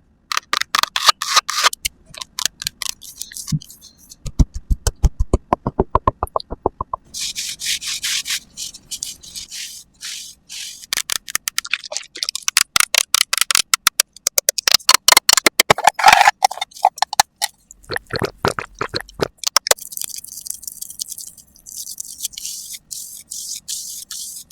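ASMR makeup sound effects: quick runs of crisp tapping and clicking, some runs deep and thudding, others bright and scratchy, giving way near the end to a steady brushing, scratching hiss.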